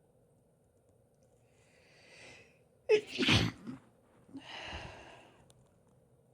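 A woman sneezing once in a sneezing fit: a short breath in, then a sudden loud sneeze about three seconds in, followed by another breath.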